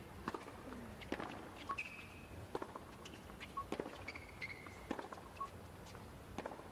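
Quiet hard-court ambience with scattered light taps of a tennis ball bounced before a serve, and a few short, high chirps.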